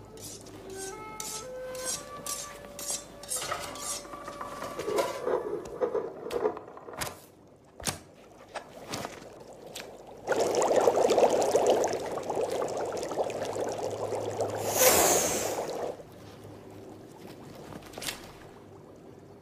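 Cartoon soundtrack of music and sound effects: short plucked notes stepping up and down in pitch among light clicks, then about ten seconds in a loud rushing noise lasting some six seconds, with a rising whoosh near its end.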